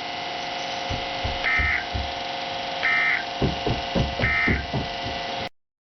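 Three short, high electronic beeps about a second and a half apart over a steady hum, with a few low thumps; everything cuts off suddenly near the end.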